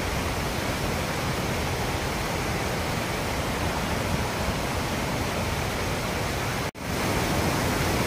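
Steady rushing roar of a monsoon waterfall, an even wash of water noise with no pauses. It cuts out for an instant a little before the end and comes back slightly louder.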